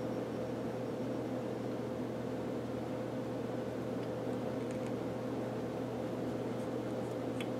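Atlas 618 lathe running under power, its electric motor and belt drive making a steady hum with a constant tone.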